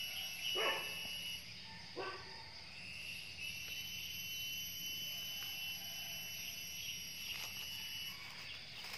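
Steady high trilling of night insects, a continuous shrill tone with short breaks over a constant higher hiss, with two brief lower calls about one and two seconds in.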